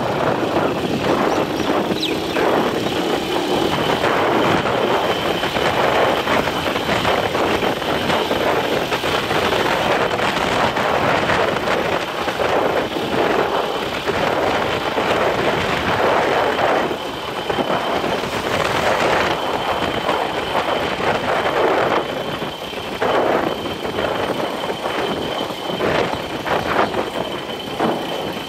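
Steady wind and road noise of a bike moving along an open road, swelling and easing, with a faint steady high whine.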